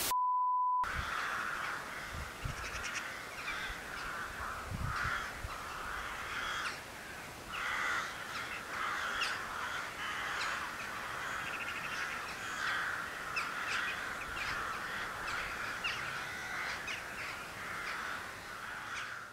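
A steady beep tone for under a second, then a run of harsh animal calls repeated every second or two over a faint outdoor background.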